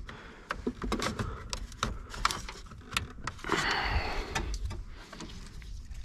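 Ignition switch wiring harness and its plastic connectors being handled and pushed into place under a truck's dash: scattered light clicks and taps, with a longer rustling scrape a little past the middle.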